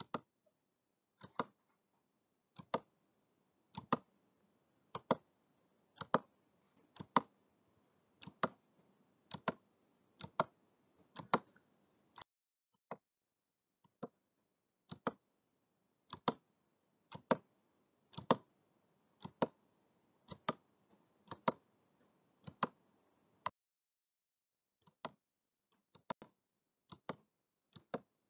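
Computer mouse clicking at roughly one click a second, many of them quick double clicks, over a faint hiss. The clicks pause briefly near the end, then carry on.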